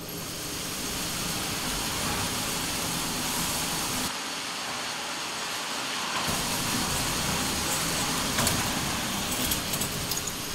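Electric target carrier on a shooting-range lane running, its motor whirring steadily as it draws the paper target back to the bench, with a few clicks near the end as it arrives.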